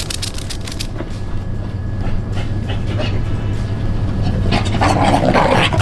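Beagles playing, making dog noises that are loudest about five seconds in, over a steady low hum.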